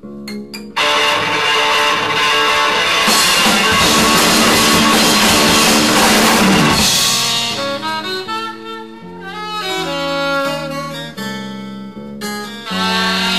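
Band music from a 1993 Japanese album: a loud, dense full-band passage starts about a second in, then after about seven seconds it thins out into separate melodic lines.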